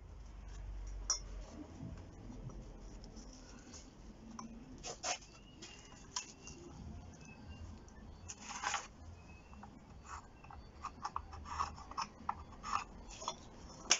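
Small steel plate offcuts being handled and fitted together by gloved hands on a workbench: scattered light clicks and scrapes of metal on metal, a few sharper knocks about five and nine seconds in, and a quick run of small taps near the end.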